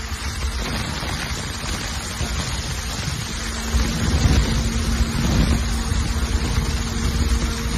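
Wind buffeting the microphone with a rumble, over a pickup truck's engine running steadily with a faint even hum; the rumble grows louder about four seconds in.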